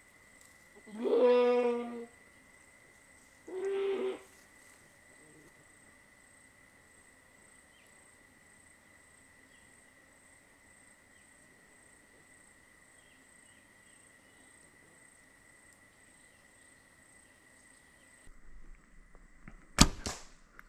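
Two loud bleats from a goat, each about a second long, rising in pitch, come one after the other in the first few seconds. After a long quiet stretch, a single sharp crack near the end: the shot of a Mathews V3 compound bow.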